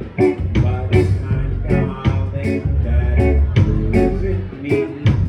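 Live band playing loudly, with guitar and bass over a steady beat.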